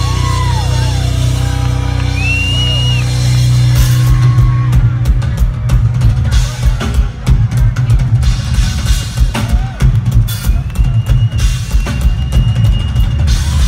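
Live rock drum solo on a full drum kit. For the first few seconds a steady low rumble sits under a few sharp crowd whistles, then about four seconds in the drummer breaks into fast, dense hits on the bass drum, snare and cymbals.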